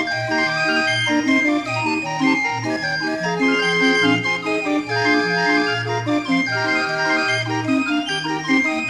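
Barrel organ playing a lively tune: a bass note on each beat, about two a second, under chords and a melody.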